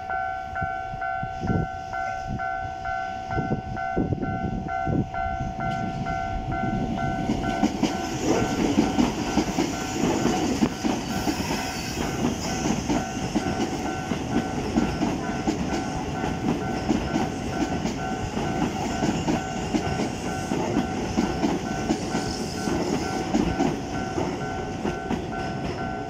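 Japanese level-crossing warning bell ringing continuously with a pulsing two-tone ring. From about eight seconds in, a Keisei 3400-series electric commuter train passes through the crossing, a heavy rumble with its wheels clattering rhythmically over the rail joints. The bell is still ringing as the last car clears.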